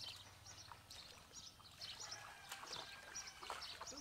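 Small birds chirping over and over, short high calls, faint, with a few soft clicks in between.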